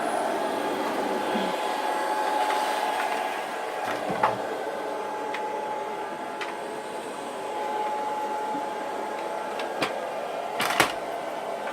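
Vacuum cleaner motor running steadily with a constant whine, broken by a few brief knocks and clicks, one about four seconds in and a couple near the end.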